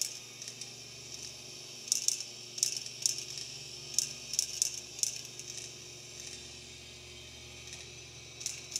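Small magnetizable steel balls clicking and clinking in a tiny 3D-printed marble machine, rolling down its plastic spiral tree ramp and through its gears. Light, irregular clicks, most in a cluster a couple of seconds in, with one more near the end.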